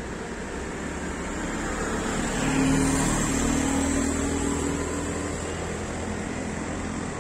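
Auto-rickshaw passing close on a wet road: its small engine's drone and the tyre hiss swell to a peak about two and a half seconds in, then fade, over a steady wash of distant traffic.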